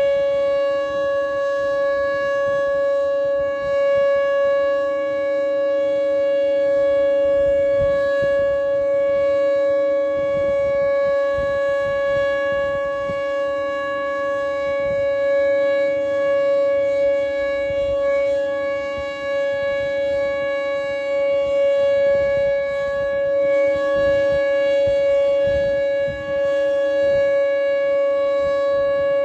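Outdoor tornado warning siren sounding a steady, unwavering tone, loud and held throughout, with a weaker lower tone swelling and fading beneath it. Sounding at noon, as in Oklahoma City's routine siren test.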